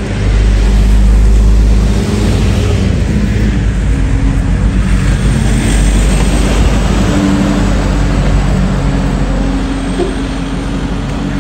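Loud wind rumble buffeting the microphone while the camera is on the move, with a few steady low hums underneath, like a vehicle running. The rumble is strongest in the first couple of seconds.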